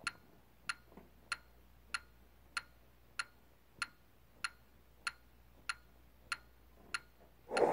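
Metronome clicking steadily at about 96 beats per minute during a rest in the tuba part. A short breathy rush near the end.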